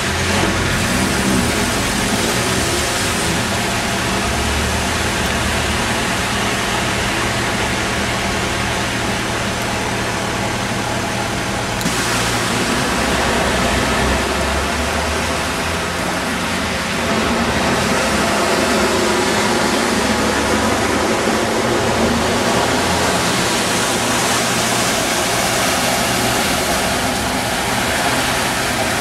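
Continuous rush of floodwater running across a street, with cars driving through it, their tyres splashing and engines running.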